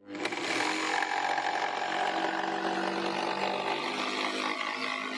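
Mafell P1cc 900 W jigsaw starting up and running steadily as its blade cuts through a laminate-faced chipboard kitchen worktop.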